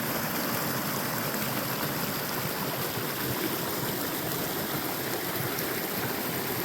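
Small mountain waterfall and stream, the water rushing steadily and evenly.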